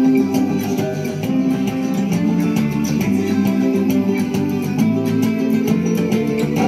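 Background instrumental music with sustained notes over a steady beat.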